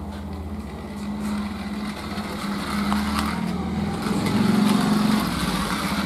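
Small toy remote-control car's electric motor and gears whirring as it drives, a steady buzz that grows louder toward the end.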